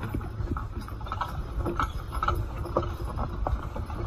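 A pair of mares walking in harness, pulling a logging forecart that skids a poplar log over dirt: uneven hoof clops, several a second, over a low steady rumble.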